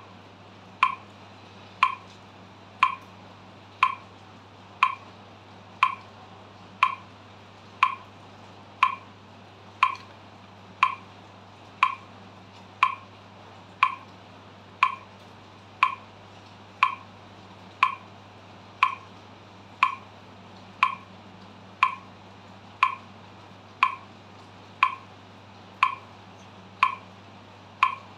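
Metronome set to 60 beats per minute, clicking steadily once a second with sharp, even clicks.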